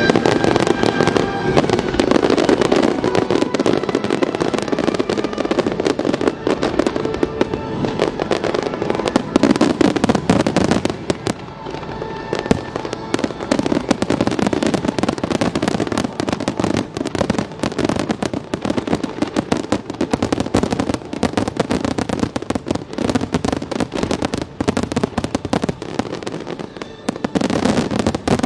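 A dense, continuous barrage of aerial fireworks bursting and crackling, with music playing beneath it.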